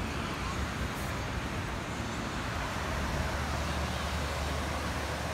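Steady rushing outdoor noise of wind on the microphone and ocean surf, with a low rumble underneath.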